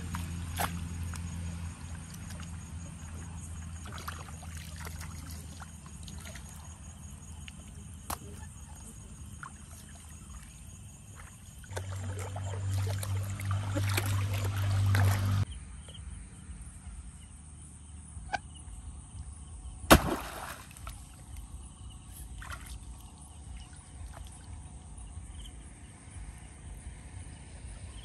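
Shallow pond water sloshing and splashing as someone wades barefoot through it, loudest for a few seconds around the middle. About twenty seconds in comes a single sharp smack, the loudest sound.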